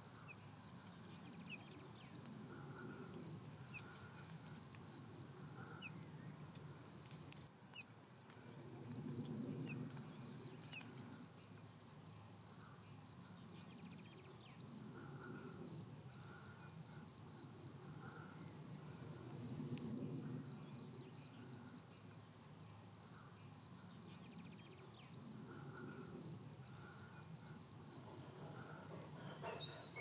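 A meadow insect chirring without a break in a fast, even pulse, high-pitched. A soft low sound swells and fades beneath it.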